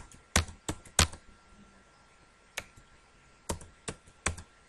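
Computer keyboard keystrokes: about nine separate taps at uneven spacing, some in quick pairs, as short commands are typed in.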